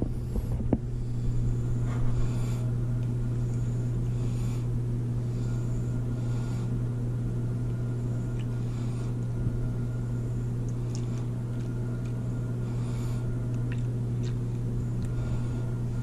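A steady low hum, with a few faint, short clinks as melted wax is poured from a glass jar into a plastic ice cube tray.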